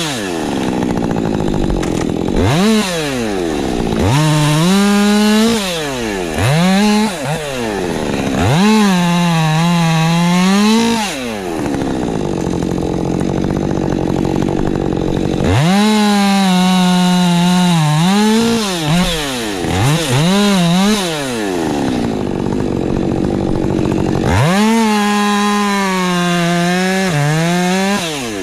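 Ported Husqvarna 550 XP Mk II two-stroke chainsaw, revved repeatedly from idle to full throttle: several short blips, then two long full-throttle runs of about five and four seconds in which the engine note sags and recovers under load as the chain cuts wood.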